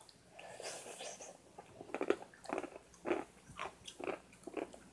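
Close-up eating sounds of a person eating ice cream: chewing and wet mouth smacks, heard as a string of short clicks about two a second.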